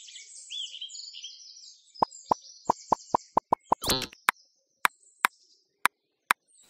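Cartoon sound effects: high bird chirping for the first three seconds, then about a dozen quick pops, rapid at first and then more spaced out, with one longer sound about four seconds in.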